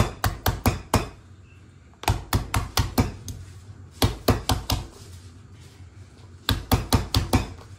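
Metal meat-tenderizer mallet pounding green beans on a plastic cutting board, smashing them before they go in the mortar. The strikes come as four quick runs of sharp knocks, about five or six to a run, with short pauses between.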